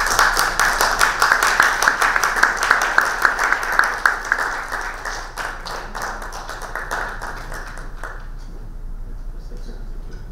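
Audience applauding, a dense patter of many hands that dies away about eight seconds in.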